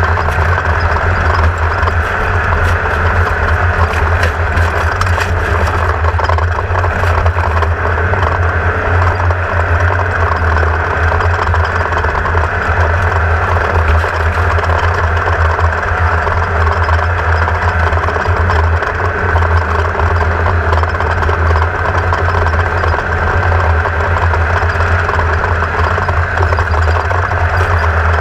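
Onboard sound of a Class 1600 off-road race buggy's air-cooled VW flat-four engine running, a loud, steady drone with a strong low hum and no clear revving up or down.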